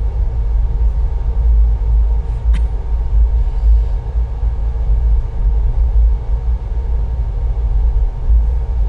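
A moving train heard from on board: a loud, steady low rumble, with one sharp click about two and a half seconds in.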